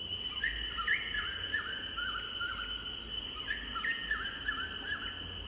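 Recorded jungle sound effect from a children's touch-and-sound book's small speaker: a steady high insect trill, with two runs of short bird chirps over it.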